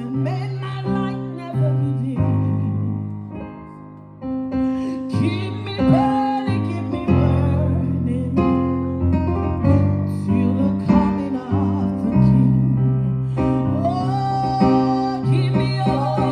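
Worship music: sustained keyboard chords with voices singing over them, dropping away for a moment and swelling back about four seconds in.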